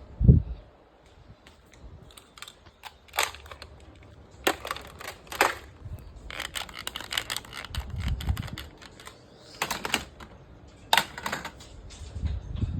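Microwave popcorn popping: irregular sharp pops, some single and some in quick clusters, with a low thump just after the start.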